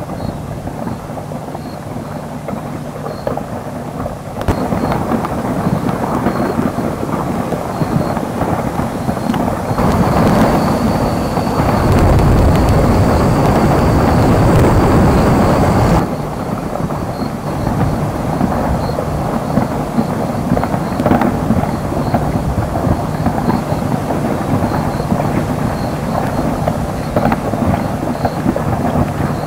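Merapi volcano's pyroclastic flows and rockfalls rushing down the lava dome: a continuous rumble with crackling. It swells about four seconds in, is loudest with a deep rumble from about twelve to sixteen seconds, then eases back.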